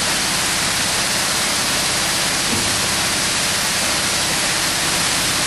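Vertical form-fill-seal packaging machine running: a steady hiss with a low hum beneath, no separate strokes standing out.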